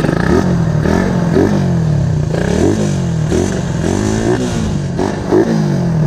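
Suzuki Raider 150's single-cylinder four-stroke engine revving up and falling back again and again, about once a second, through a newly fitted big-elbow exhaust header. The exhaust has a crackly edge and there is no backfire.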